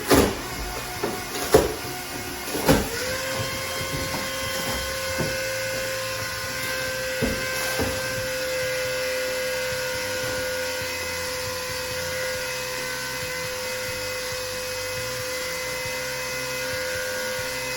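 A few loud clunks, then a small pump motor starts about three seconds in, quickly comes up to speed and runs with a steady hum. It is pumping RV antifreeze ballast from a tub into a tractor tire.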